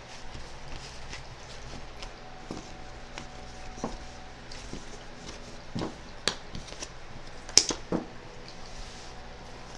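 A few scattered light taps and clicks, irregularly spaced, the sharpest about three-quarters of the way through, over a low steady room hum.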